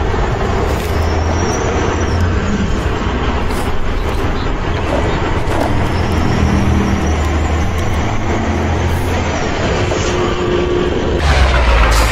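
Heavy truck engine running steadily with a low rumble, growing louder and deeper near the end.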